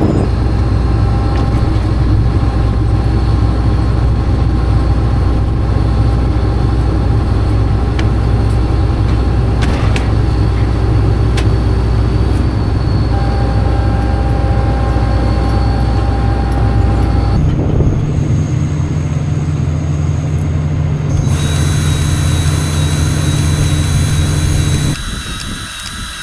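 Farm machine's engine running steadily at idle, the note changing abruptly about two-thirds of the way through and dropping quieter near the end.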